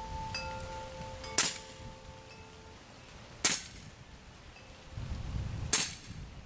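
Three shots from a .22 Benjamin Armada semi-auto PCP air rifle, about two seconds apart, each a short sharp crack: the quiet report of its integrally suppressed shrouded barrel, measured at 65 to 66 dB.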